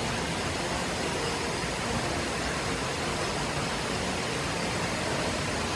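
Steady rush of falling water from waterfalls inside a cave, an even hiss with no breaks.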